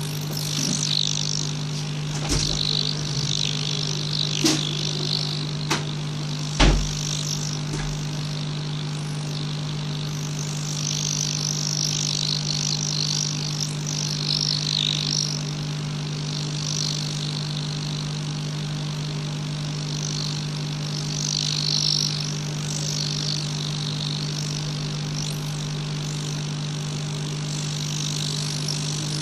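Hot air rework station blowing while a charging socket is heated off a phone's circuit board: a steady fan hum with a wavering hiss of air. A few sharp taps come in the first seven seconds, the loudest about six and a half seconds in.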